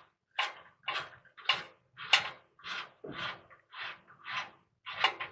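Wrench being worked back and forth to run the 3/4-inch nut off the upper mounting stud of an RV rear shock absorber, after the nut has been broken loose. The strokes come in an even rhythm, about two a second, nine in all.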